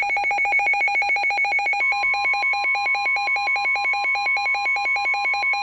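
Emergency weather alert tones: a rapid electronic warble alternating between two pitches about eight times a second, joined about two seconds in by a steady tone near 1 kHz, the NOAA Weather Radio warning alert tone.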